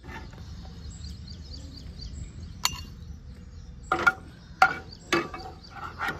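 A metal utensil clinking several times against a stainless steel mixer-grinder jar as fried onion and tomato masala is put into it: one clink, then a quick run of four or so sharp clinks near the end.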